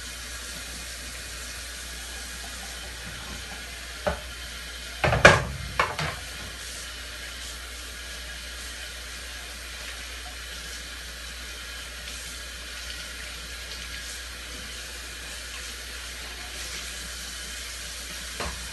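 Tap water running steadily into a sink as dishes are washed by hand. A single clink comes about four seconds in, then a brief clatter of dishes a second later.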